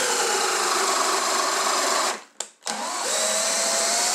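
Cordless drill-driver turning a machine tap into the end of an aluminium extrusion profile, cutting a thread. It runs in two stretches of about two seconds, with a brief stop a little over two seconds in, and the motor's whine rises slightly in the second run.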